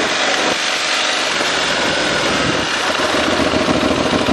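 Aprilia Tuareg 660's parallel-twin engine running at low speed on a gravel dirt track, with tyre and wind noise over it.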